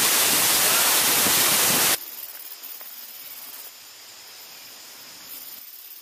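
Waterfall rushing, a loud steady roar of falling water that cuts off abruptly about two seconds in. It leaves only a faint steady hiss with thin high tones.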